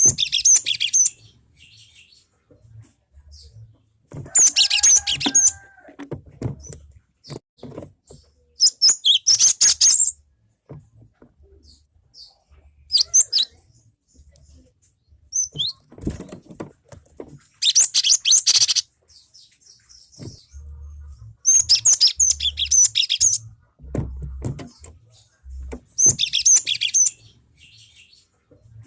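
Cinereous tit (gelatik batu) singing in short bursts of rapid high notes, each a second or two long, repeated every few seconds.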